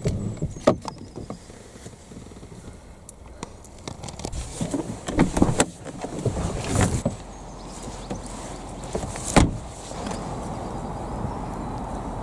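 Car noise: a low rumble with several sharp knocks and clicks scattered through it, the loudest about nine and a half seconds in, settling into a steadier rumble near the end.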